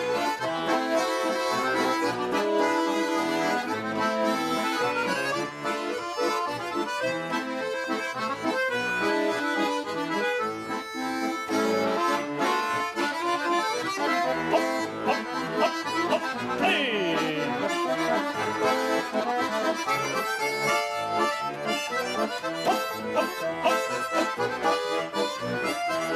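Bayan (Russian button accordion) playing an instrumental chastushka tune between sung verses: a melody over a steady rhythmic bass-and-chord accompaniment.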